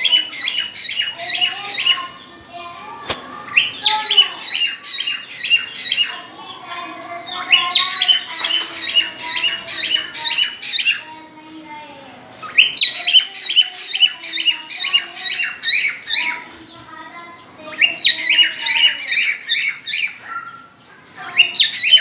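Cockatiels calling in repeated bursts of rapid, high chirping notes, about four a second, each burst lasting a few seconds with short pauses between, five bursts in all. The calls are presented as the mating whistling of birds ready to breed.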